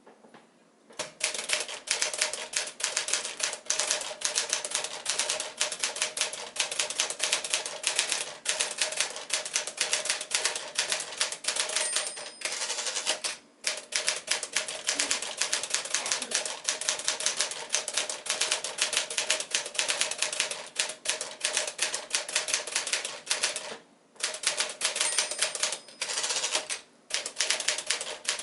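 1954 Smith-Corona Silent manual typewriter being typed on steadily, a rapid run of key strikes with a few brief pauses.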